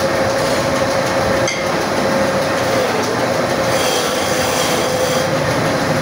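Belt-driven wood lathe running with a hand chisel cutting into a spinning wooden spindle: a steady rasping cut over a steady whine from the spinning work and drive.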